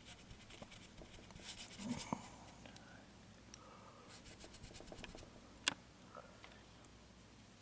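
Paintbrush bristles scrubbing paint into a painting board in quick short strokes, in two spells, with one sharp click a little past halfway.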